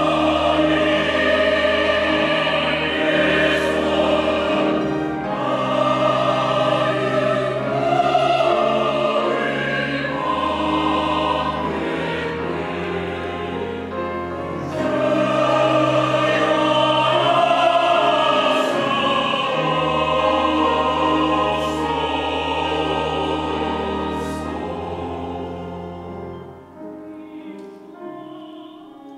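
Mixed church choir singing a Christmas anthem in Korean, in parts over long, sustained low accompanying notes. The music dies away softly over the last few seconds.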